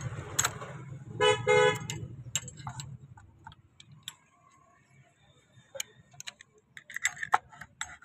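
A low engine rumble that dies away by about three seconds in, with two short vehicle-horn toots a little over a second in. After that come scattered metal clinks from a steel bar knocking against the scooter's exhaust pipe and flange.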